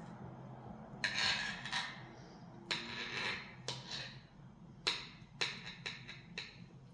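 Small kitchen knife slicing through a block of canned ham and knocking on the cutting board beneath: two longer scraping strokes in the first half, then a run of short sharp taps.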